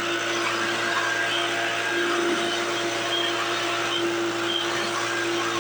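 A leaf blower running steadily, with a constant whine over a rush of air, blowing dust out of a Hoover WindTunnel upright vacuum.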